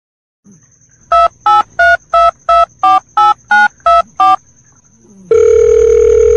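Telephone keypad touch-tones: ten short beeps of varying pitch, about three a second, followed about a second later by one long steady tone lasting about a second and a half.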